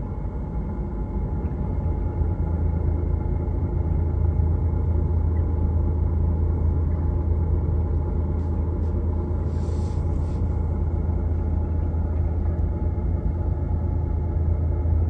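Boat engine running steadily under way, a low drone that grows a little louder about two seconds in, with a short hiss about ten seconds in.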